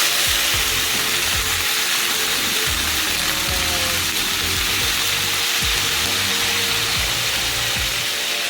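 Steady sizzling hiss of food frying in a pan, with background music underneath.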